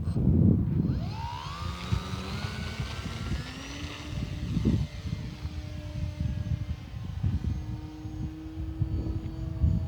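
RC model airplane's motor and propeller whining up in pitch over the first few seconds, then holding a steady tone. Heavy wind buffets the microphone throughout.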